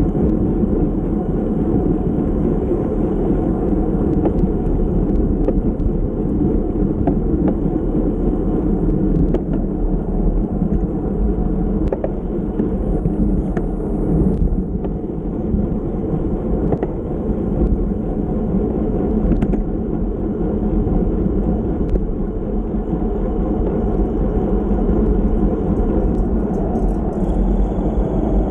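Steady wind rush and tyre-on-road rumble on a bicycle-mounted action camera's microphone while the bike is ridden, with a few faint clicks.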